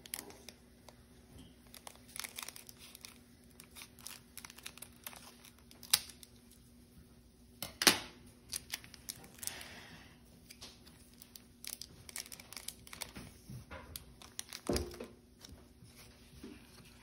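Foil wrapper of a Pokémon TCG booster pack crinkling and tearing as it is opened, in scattered sharp crackles, the loudest two about six and eight seconds in. A soft thump comes near the end as the cards are handled.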